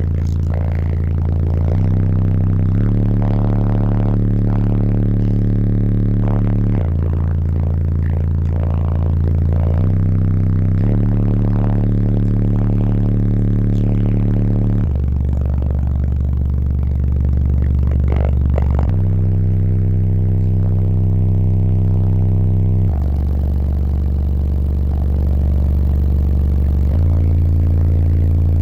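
Three 15-inch subwoofers on American Bass 750.1 amplifiers playing a bass test track at high level inside the vehicle's cabin: deep sustained bass notes that change pitch every few seconds. The vehicle's panels rattle along with the bass.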